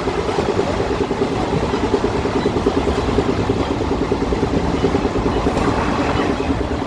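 Doon Express passenger train running on the line, heard from on board: a steady running noise of wheels on rails, growing slightly louder.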